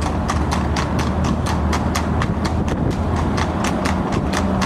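Shod hooves of a trotting harness horse on a tarmac road, a quick even clip-clop of about four hoofbeats a second as it pulls a sulky at a fast trot.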